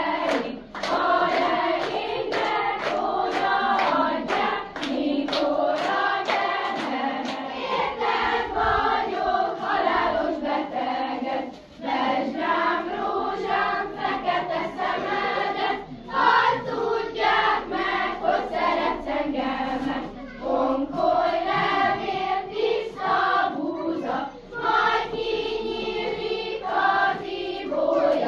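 A group of voices singing a song together, with sharp percussive beats keeping time, as in clapping or stamping.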